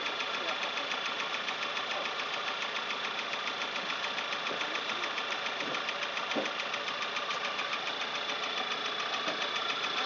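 Off-road rally 4x4's engine idling steadily with a rapid, even pulse, with a steady high whine over it.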